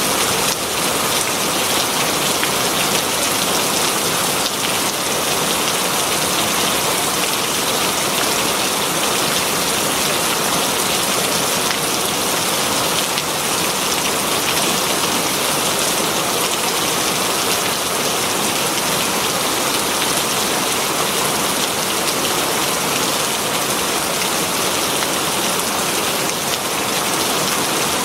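Very heavy rain falling steadily on leafy foliage, a dense, even hiss of drops.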